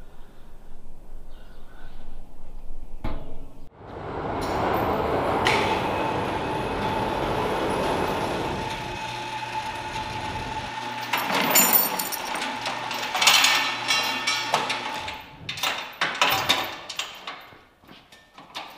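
Overhead chain hoist lifting a welding machine: a steady mechanical run lasting several seconds, followed by chain rattles and metal clanks as the load swings and is handled.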